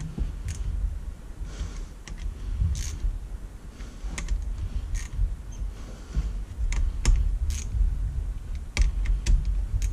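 Small hand ratchet clicking in short, irregular runs as the head bolts of a Sanden 709 A/C compressor are run down and snugged by hand, over a steady low rumble.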